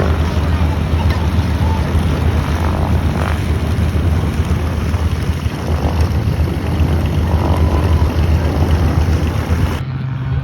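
Propeller airplane's piston engine running loud and steady, then cutting off abruptly near the end.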